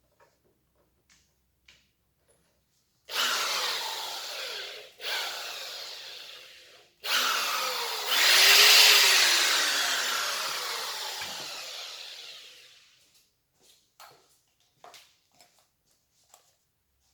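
Scheppach DM850 850 W corded hammer drill triggered three times. The first two are short runs that wind down when the trigger is let go. The third speeds up a second time and then coasts down slowly over several seconds, its pitch falling. A few light handling clicks follow.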